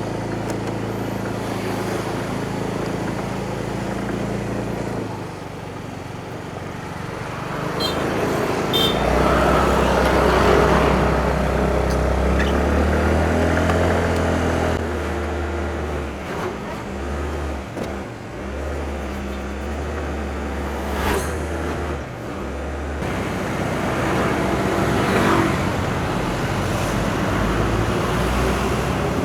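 Road traffic with motor vehicle engines running and passing, in several short clips whose engine tone changes abruptly at each cut.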